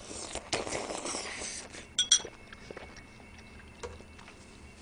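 Noodles slurped off metal chopsticks for about a second and a half, then two quick clinks of the metal chopsticks against a ceramic bowl about two seconds in, followed by faint chewing.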